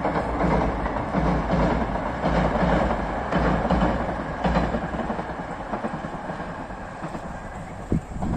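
A train running past, its wheels clacking over the rail joints in a repeating beat that eases off after about five seconds. There is a single sharp click near the end.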